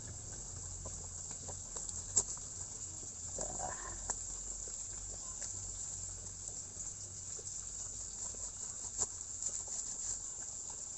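Steady high insect chirring, crickets, with a few faint sharp clicks as a snap-off cutter knife cuts into a loa bonsai root.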